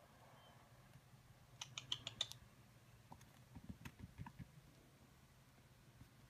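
A quick run of about six sharp clicks in under a second, then a few soft, dull taps: a young red squirrel's claws scrabbling on a fabric-and-mesh pet carrier as it tussles with a hand.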